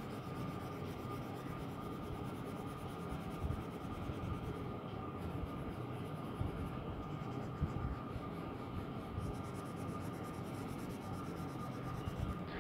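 A colored pencil scratching faintly on paper as a drawing is shaded in.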